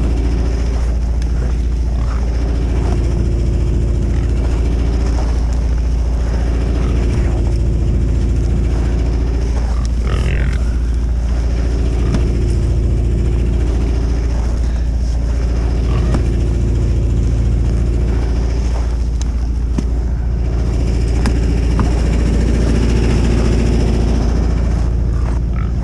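An engine running steadily with a deep rumble, its pitch swelling up and down slightly every few seconds, with a few light knocks over it.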